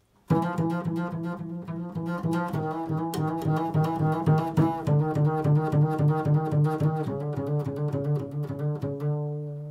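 Double bass played pizzicato: a quick run of plucked notes, about five a second, starts suddenly just after the beginning. Near the end the run stops and one low note is left ringing and fading.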